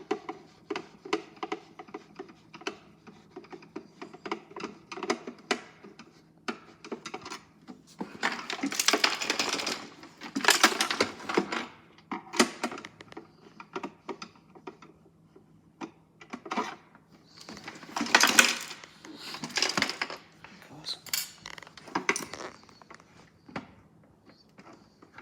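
Small plastic toy washing machine being taken apart with a screwdriver: many irregular light clicks and clinks of the screwdriver, screws and hard plastic casing, with two longer stretches of rattling and scraping plastic about 8 seconds in and again near 18 seconds.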